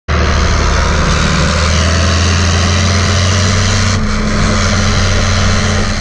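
John Deere 4230 tractor's six-cylinder turbocharged diesel running steadily under way, heard up close from the open operator station.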